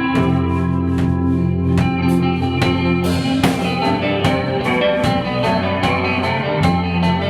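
A rock band playing live: guitars with sustained notes and a drum kit keeping a steady beat, with no singing.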